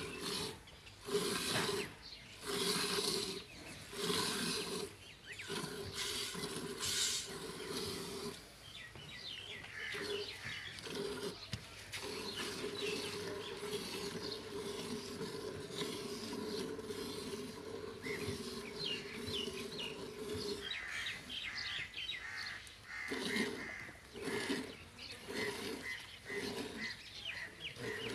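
Nili-Ravi buffalo being hand-milked into a steel bucket: jets of milk hit the bucket in a rhythmic rasping hiss, squeeze after squeeze. A steady droning tone runs through the middle, and small birds chirp near the end.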